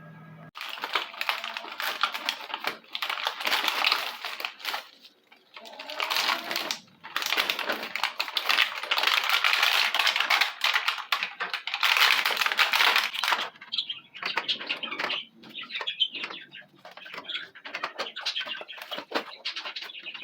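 Dense clattering and rustling of food containers and packages being put back into a refrigerator, thinning to scattered clicks and knocks about two-thirds of the way through.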